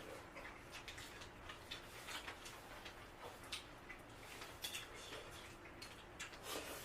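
Faint, irregular clicks and taps of people eating a meal at a table.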